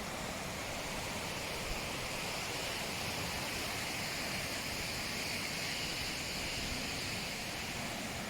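Waterfall rushing steadily, a constant hiss of falling water.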